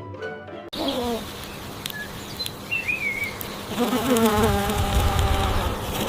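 Kitten meowing in drawn-out, falling cries: a short one about a second in and a longer, louder one around the fourth and fifth seconds. Behind it is a steady insect-like buzz with a few short bird chirps. Background music cuts off just under a second in.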